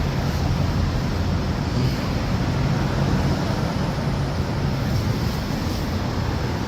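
Steady road traffic noise: a continuous low rumble and hiss of passing vehicles.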